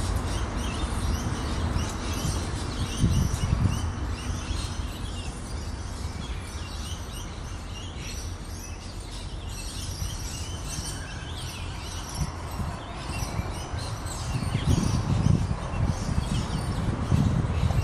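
Small birds chirping, many short high calls overlapping throughout, over a low rumble that grows louder near the end.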